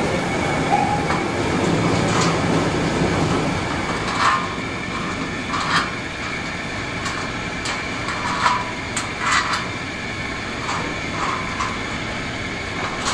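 A roller shaft being worked into a flanged bearing housing on a steel machine frame: a string of short, light metallic clicks and knocks over a steady background hum.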